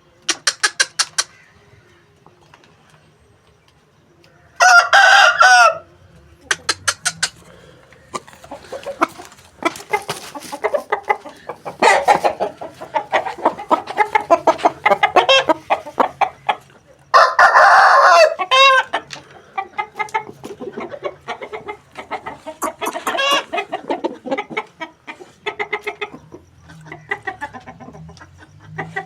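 Aseel roosters crowing: two loud crows of about a second each, one about five seconds in and another after about seventeen seconds, with chickens clucking and chattering in short calls between and after them.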